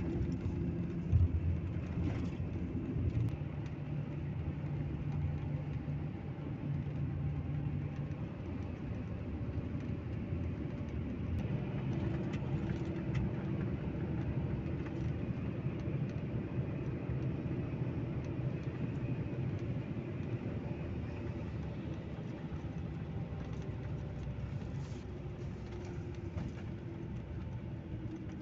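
Coach bus on the road, heard from inside the passenger cabin: a steady low engine and road rumble, with one sharp thump about a second in.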